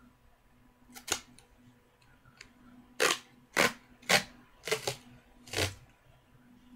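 Silver duct tape being pulled off the roll in short tugs: one loud rip about a second in, then five more in quick succession over the next three seconds.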